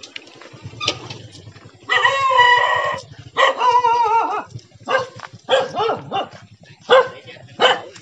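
Small tan dog barking: two longer, drawn-out barks about two and three and a half seconds in, then a run of short barks about two a second.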